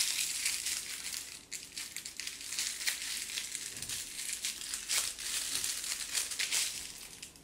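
Thin plastic piping bag filled with icing crinkling and rustling as it is twisted and folded in the hands, in irregular crackles that fade toward the end.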